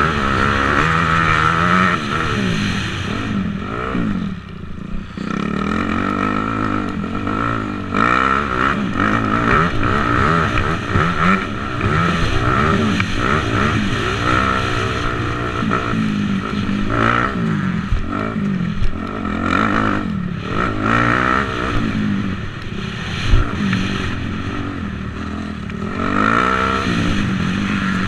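250cc motocross bike engine revving up and dropping back again and again as it is ridden hard around the track, the throttle briefly closed about four seconds in. Two short sharp knocks stand out later on.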